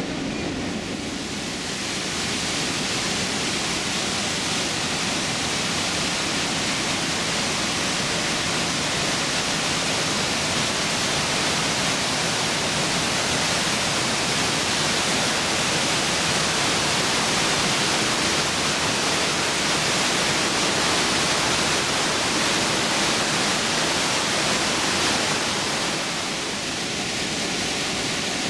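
Trümmelbach Falls, a glacier-fed waterfall inside the mountain, rushing down its rock chute in a loud, steady hiss of water. It grows louder about two seconds in and eases slightly near the end.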